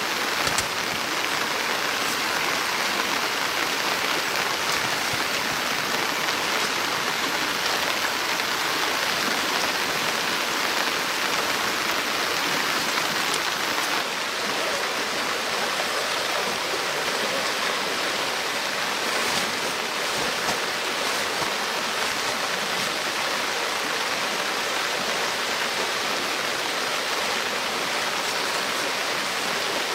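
Steady, even rush of water, unbroken throughout, dipping slightly in level about halfway through.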